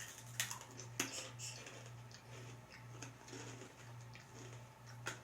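Crisp snack sticks being bitten and chewed: a few sharp crunches, about half a second in, at one second and near the end, with softer crackling between, over a steady low hum.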